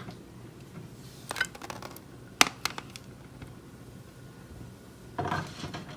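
A few light, sharp clicks and clinks, the sharpest about two and a half seconds in, from handling around the opened pressure canner and its glass jars, then a short rustle near the end.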